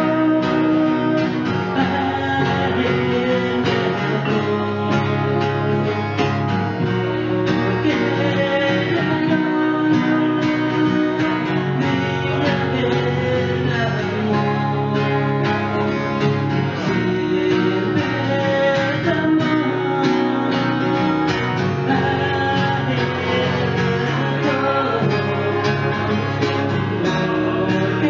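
Two acoustic guitars strummed together while a man sings into a microphone: a live acoustic guitar-and-voice song.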